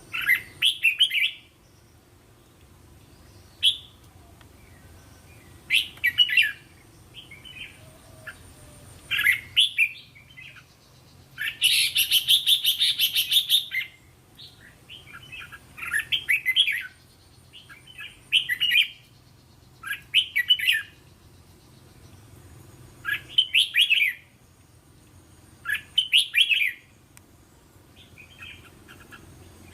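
Red-whiskered bulbul singing short, quick phrases of whistled notes, one about every two to three seconds, with a longer harsh chattering call of about two seconds near the middle.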